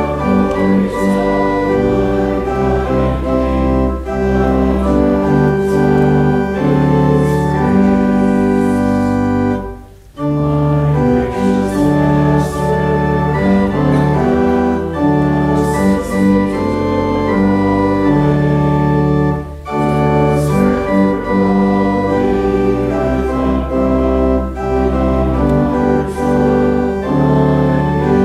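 Church organ playing a hymn in sustained chords, with brief breaks between phrases about ten seconds in and again near twenty seconds.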